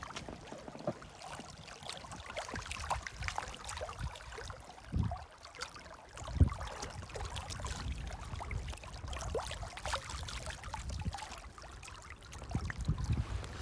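Shallow stream water gurgling and splashing close around a packraft moving with the current, with a couple of dull low knocks about five and six and a half seconds in.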